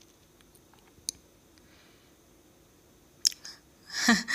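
Faint sizzle of battered skewers deep-frying in a pan of hot oil, with a couple of sharp crackles. A woman's voice starts near the end.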